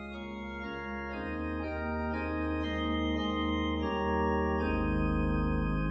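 Organ playing slow, held chords that swell in and grow louder over the first few seconds, then hold steady, the chord changing every second or so with the bass moving lower near the end.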